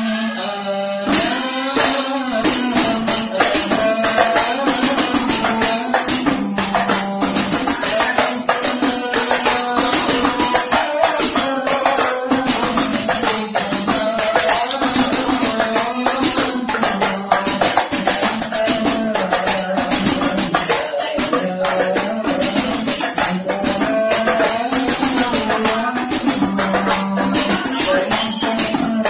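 Sholawat, an Islamic devotional song, with a fast, even beat of jingling tambourine-style percussion that comes in about a second in, under a wavering melody.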